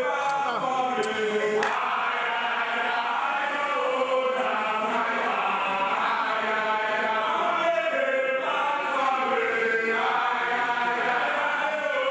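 A group of voices singing a chant together, many overlapping voices kept up without a break.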